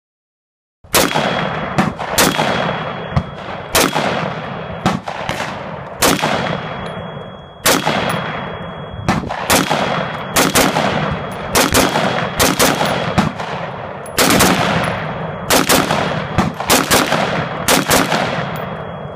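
Daniel Defense MK18 short-barreled rifle in 5.56 with a 10.5-inch barrel firing a long string of shots in quick, irregular succession, roughly one to two a second. Each report has an echoing tail. The shots start about a second in and cut off abruptly at the very end.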